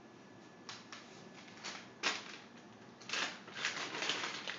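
A plastic bottle crinkling and crackling as it is handled, in short bursts, with a longer run of crinkling about three seconds in.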